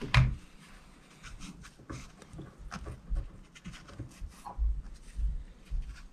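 Hands working tying thread and a foam body on a hook held in a fly-tying vise: faint rubbing and small clicks. There is a sharp knock at the start and a few low thuds near the end.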